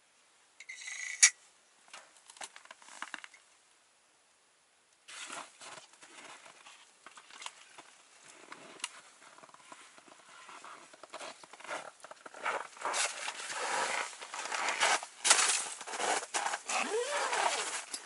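A few sharp clicks, then irregular rustling, scraping and knocking from someone moving about and coming into the ice-fishing tent, louder near the end.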